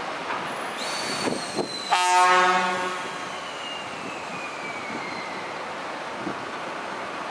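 DD51 diesel locomotive's American-style air horn sounds one short blast about two seconds in, after two clanks. A thin high squeal slowly falls in pitch after the blast over the steady rumble of the moving locomotive.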